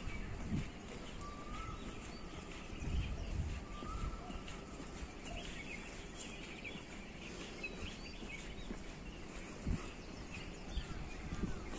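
Outdoor background noise with occasional low thuds, and a few short, faint bird chirps and whistles.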